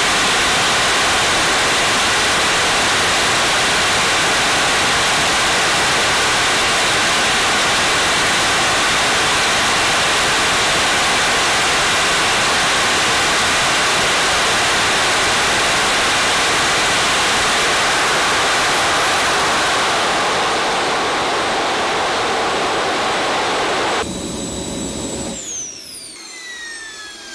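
Small model turbine jet engine running at full throttle on Jet A kerosene: a loud, steady rushing noise that eases slightly about twenty seconds in. Near the end the level drops and the turbine's high whine glides downward as the engine spools down in its cooling cycle.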